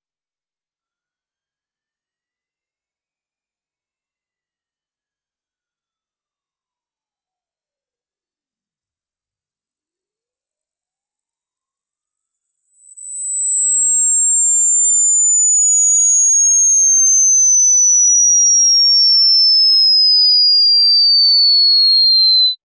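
Pure sine test tone of a hearing test, starting under a second in at the very top of the hearing range and falling slowly in small steps to a high whistle over about twenty seconds. It is a descending frequency sweep: the point where a listener starts to hear it marks the upper limit of their hearing.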